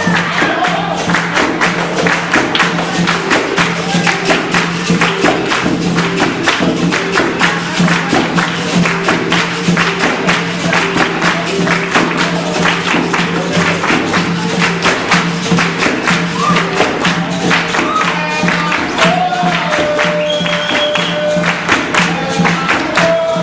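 Capoeira roda music: a steady rhythm of pandeiro and atabaque hand drum with berimbau and hand-clapping, and voices singing over it.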